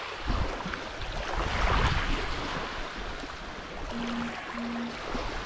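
Wind on the microphone over water washing at the shore, a steady noise that swells briefly. About four seconds in come two short low tones in a row.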